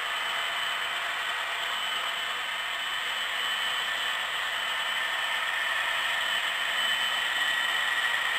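HO scale model freight train rolling past on the layout track: a steady rolling hiss of small metal wheels on rails, with a thin steady whine over it.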